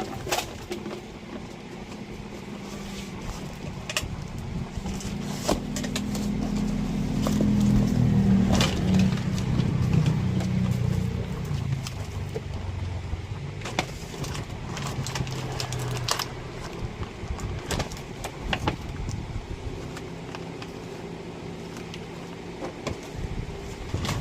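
A motor vehicle passing by, its engine hum swelling to a peak and then fading away, with scattered clicks and knocks.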